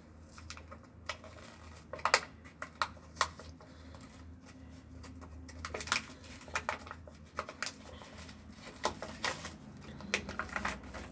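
Irregular small clicks, taps and knocks of small objects being handled and rummaged through, over a steady low hum.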